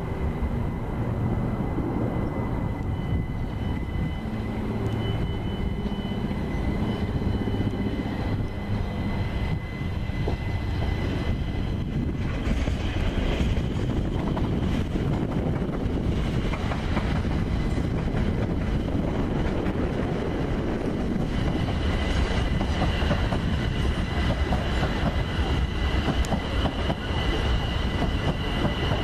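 London Overground Class 378 Electrostar electric multiple unit arriving, its wheels rumbling steadily on the rails. A steady high tone runs over the rumble, and a second, higher tone rises in twice, briefly early on and again over the last several seconds.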